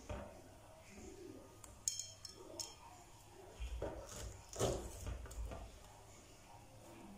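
Kitchen knife slicing a ripe banana over a glass bowl of batter, with a few light clinks of utensils against the bowl about two seconds in and a cluster of soft knocks and handling noises around four to five seconds in.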